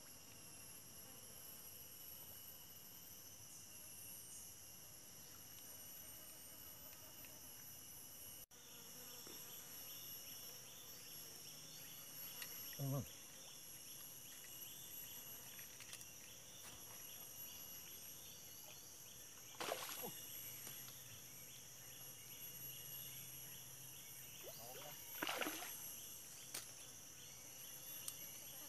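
Faint, steady insect chorus of several high shrill tones. After about nine seconds a rapid repeated chirp joins it. Three brief louder sounds stand out, about thirteen, twenty and twenty-five seconds in.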